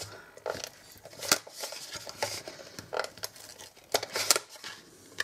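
Cardstock being handled and glued with a Fast Fuse adhesive applicator: irregular sharp clicks and short paper rustles, half a dozen or so spread across the few seconds.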